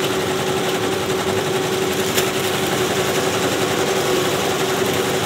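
Multi-needle commercial embroidery machines stitching: a steady, fast mechanical clatter with a constant hum.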